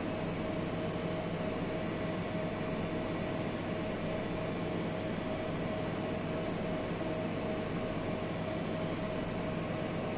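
Steady room noise of running equipment: an even hiss and low hum with one steady mid-pitched whine, unchanging.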